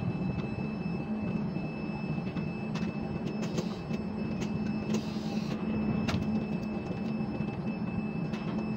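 Ship-to-shore container crane running, a steady machinery hum as its hoist lowers the spreader on its wire ropes, with scattered light clicks and a short hiss about five seconds in.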